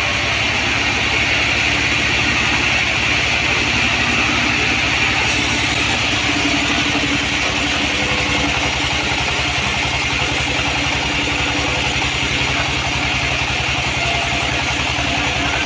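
Sawmill band saw machinery running steadily, a continuous engine-like hum with no break.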